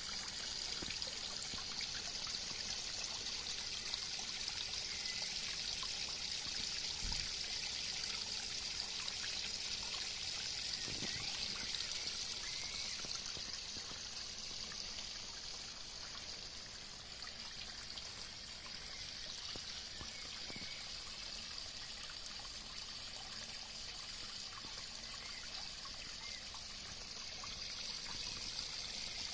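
Pond spillway bowl pouring a thin stream of water into the pond below: a steady trickling splash. It gets a little softer around the middle and louder again near the end.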